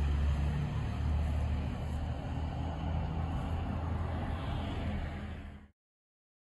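Outdoor road traffic noise: a steady low rumble with a haze of passing-car sound, cutting off suddenly about five and a half seconds in.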